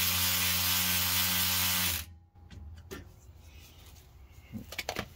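Cordless electric ratchet motor running steadily for about two seconds as it loosens the top bolt of a differential cover, then stopping abruptly. A few light clicks and taps follow as the tool is handled.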